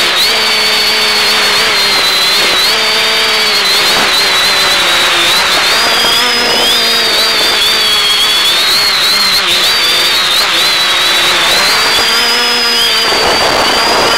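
Quadcopter electric motors and propellers whining, heard through the FPV video downlink, with several pitches wavering together as the throttle changes. Near the end the pitches climb and a rush of noise comes in as power goes up.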